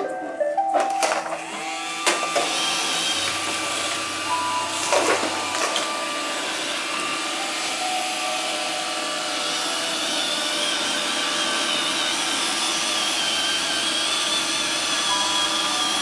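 iRobot Roomba 533 robot vacuum starting up with a few short beeps. Its vacuum and brush motors then run steadily with a high whine, and a knock or two sounds in the first few seconds.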